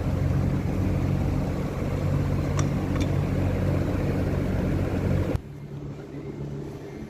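Engine running steadily with a low hum, and two light clicks near the middle. About five seconds in the sound drops off sharply and continues much quieter.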